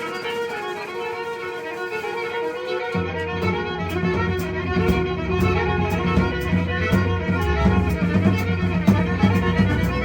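Live band music: a sustained, held melodic line, joined about three seconds in by a heavy low bass part and regular high percussion ticks.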